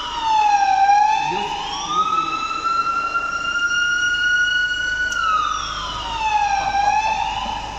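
The roadshow truck's electronic warning siren wailing: a high tone that glides down and back up, holds steady for about three seconds, then dips and climbs again.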